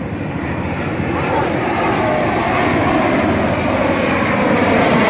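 Dassault Rafale fighter jet on low landing approach, its twin M88 turbofans' jet noise growing steadily louder as it comes in, with a high whine that slowly falls in pitch.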